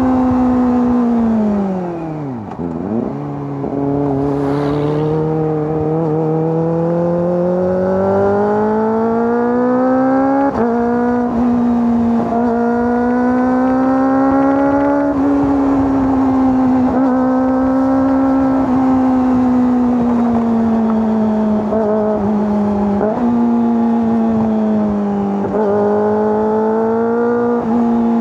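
Kawasaki ZX-25R SE's 249 cc inline-four engine and exhaust running under way. The revs drop sharply about two seconds in, then climb and ease back in long swells, with sudden jumps in pitch around ten seconds in and again near the end.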